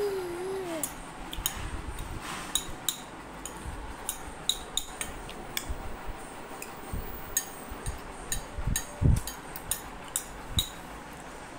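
A baby's short wavering coo, ending within the first second, followed by irregular small clicks and soft thumps of a phone being handled close to its microphone, the loudest thump about nine seconds in.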